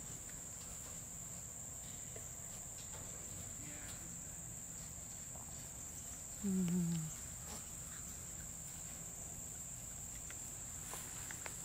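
Steady high-pitched drone of insects in the evening yard. About six and a half seconds in comes a brief low vocal sound that falls in pitch.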